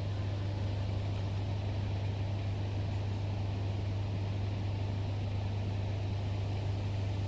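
A steady low hum over a faint even hiss, with no change in pitch or level.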